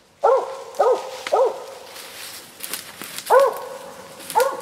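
Cur squirrel dog barking treed at a squirrel up in the trees: three quick barks in the first second and a half, then a pause and two more barks.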